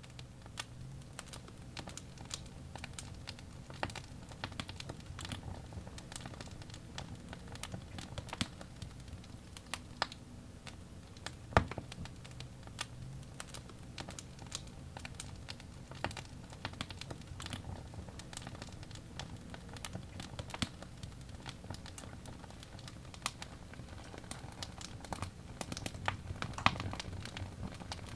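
Wood fire crackling in a fireplace: a constant run of sharp pops and snaps, several a second, over a low rumble of burning, with one louder pop a little before halfway.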